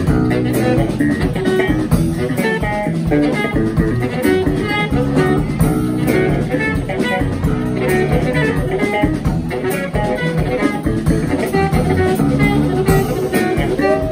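Live trio of saxophone, electric bass guitar and drum kit playing an instrumental tune, the saxophone carrying the melody over a walking bass line and steady drumming.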